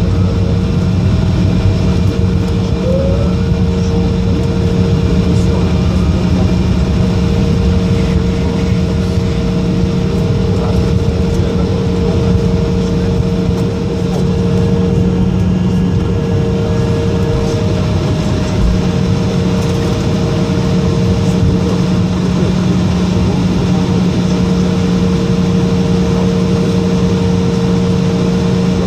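Cabin noise of an Embraer 175 rolling along the runway and taxiway after touchdown: the General Electric CF34-8E turbofans run with a steady hum over the rumble of the wheels on the pavement.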